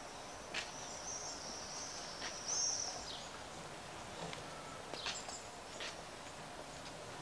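A bird's high, thin chirping trill over a quiet open-air background, with a few scattered sharp clicks.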